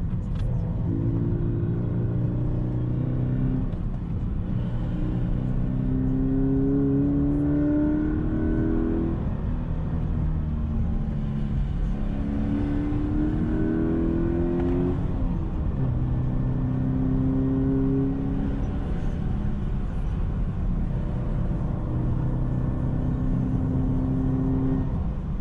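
Toyota 86's 2.0-litre FA20 flat-four engine pulling uphill, heard from inside the cabin. Its note rises slowly under acceleration and then drops back, about five times, as the car speeds up and eases off between bends.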